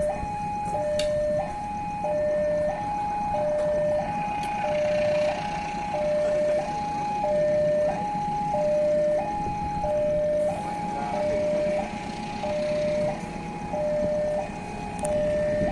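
Railway level-crossing warning signal: an electronic two-tone alarm alternating steadily between a lower and a higher note, about one change every two-thirds of a second, sounding as a train approaches the closed crossing.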